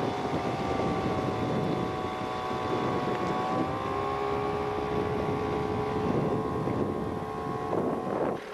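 A small boat's gasoline outboard motor running steadily under way, with wind and water rushing. Near the end the engine eases off and the sound drops.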